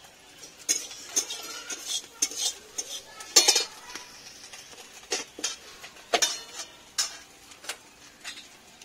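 A metal spatula scraping and clinking against a steel wok of frying onion, in a dozen or so irregular strokes, the loudest about three and a half seconds in, over a light sizzle.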